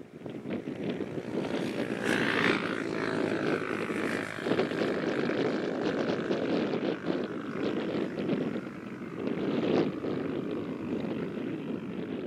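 Airbus A319 jet engines running steadily as the airliner taxis away on the runway, with a high engine whine about two to three seconds in. Wind rumbles on the microphone.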